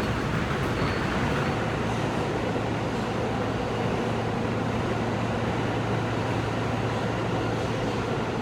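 Steady running noise inside a Kawasaki R160B subway car with Siemens propulsion, heard while the train travels between stations: the wheels rumble on the rails and the car hums evenly.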